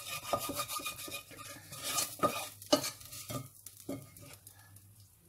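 Wooden spoon scraping and knocking against the inside of a stainless steel cooking pot, scraping out the last of the cooked sabzi, with a few sharper knocks about two seconds in.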